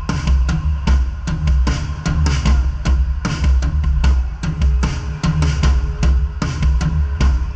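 Live rock-style drum kit playing a steady beat of kick drum and snare with the band's bass underneath, heard close up from the drummer's seat. The kit is a Yamaha Recording Custom with Sabian HHX cymbals.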